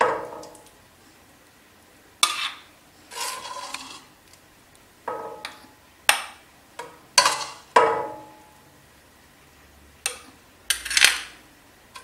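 Hot mandarin jam being spooned into a glass jar held over a stainless steel pot: a utensil clinks and scrapes against the jar and the pot in a string of separate knocks, each ringing briefly, with quiet gaps between them.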